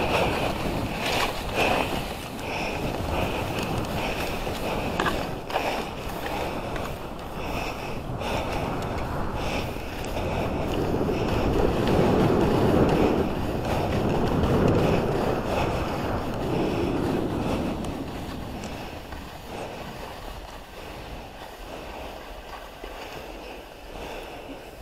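Skis hissing and scraping over snow at speed, with wind rushing on the microphone. The rush swells in the middle, then fades as the skier slows toward a stop.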